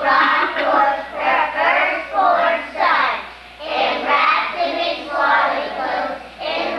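A group of young children singing together, in sung phrases with a short break about halfway through.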